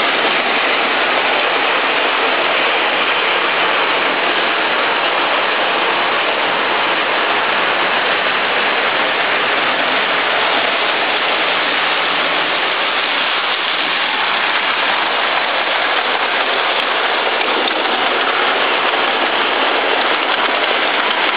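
Lionel O-gauge model trains running on three-rail track: a steady, even rolling rattle from wheels and motors that holds at one level.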